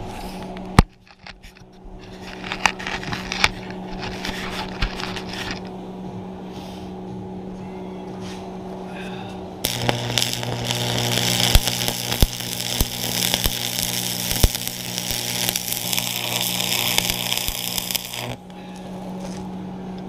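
Stick welding a steel chain hook onto a skid steer bucket: a continuous arc crackle and sizzle starts about ten seconds in and stops cleanly about eight seconds later, over a steady electrical hum. Before it, a few sharp knocks and short crackles.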